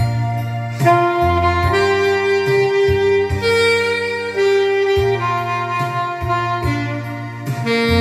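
Saxophone playing a slow, lyrical melody of long held notes, each about a second long, over a recorded accompaniment with sustained bass notes and the occasional struck beat.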